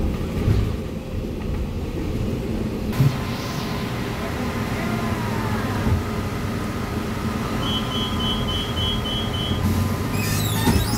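Cabin noise of a Volvo B8RLE city bus under way, with a steady engine and road rumble and some rattles. A rapid run of short high beeps sounds for about two seconds near the end, followed by a brief squeal.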